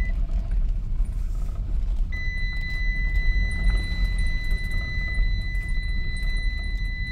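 Low steady vehicle rumble with a steady high-pitched electronic tone that cuts out for about two seconds near the start, then returns.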